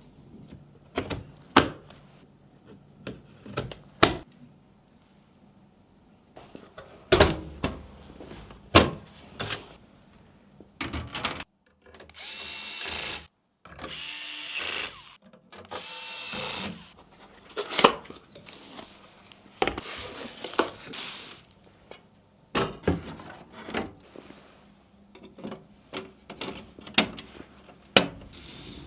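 Computer parts being handled and fitted together: irregular sharp clicks and knocks of hard plastic and metal, with a stretch of steadier rasping noise in the middle.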